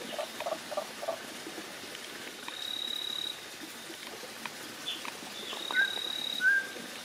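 Frog and insect calls: a thin, high steady note held for under a second, three times. Near the end come two short sharp chirps, which are the loudest sounds.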